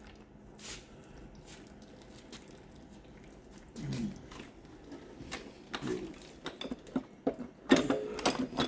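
Metal transmission parts being handled on a workbench: scattered light clicks, then a louder clatter of parts near the end. A couple of short, low voice-like sounds come in between.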